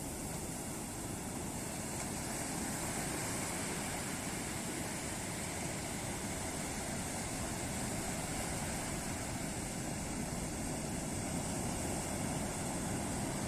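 Ocean surf washing on a beach: a steady, unbroken rush of breaking waves that swells slightly a few seconds in.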